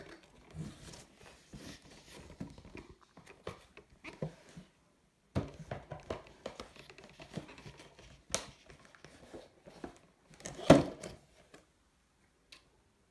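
Cardboard and plastic toy packaging being handled and opened by hand: irregular rustling and crinkling with scattered clicks and knocks as a plush toy is pulled out of its window box. The loudest burst comes about two seconds before the end.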